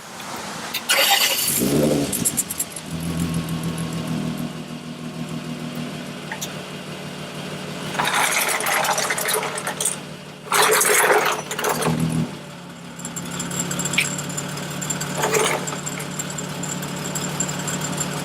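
2003 Winnebago Rialta's VR6 engine cranked and started about two seconds in, then idling steadily, with its exhaust coupler and clamps freshly replaced and no exhaust leak to be heard. Two louder noisy stretches of a second or two come over the idle around the middle.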